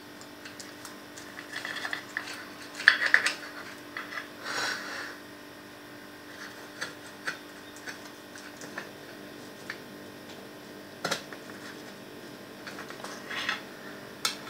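A knife cutting through a cheesecake on a plate: scattered scrapes and clicks as the blade works down and taps the plate, loudest and busiest a couple of seconds in, then a few sharp ticks.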